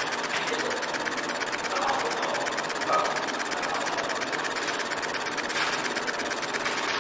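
Fiber laser marking machine engraving an MDF bowl: a steady, fast, evenly pulsing buzz as the laser scans and burns the wood.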